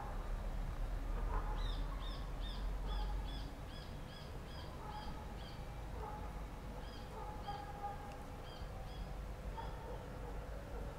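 A bird chirping in quick runs of short high notes, about three a second, over fainter lower calls and a low rumble.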